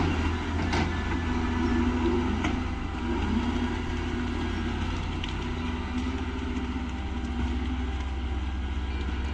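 Heavy machinery running steadily: a constant deep engine drone with a wavering whine above it, and a couple of sharp knocks in the first second.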